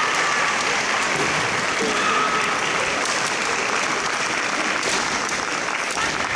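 Spectators clapping steadily in a large hall through a kendo bout, with a kendo fighter's high-pitched kiai shout held briefly about two seconds in.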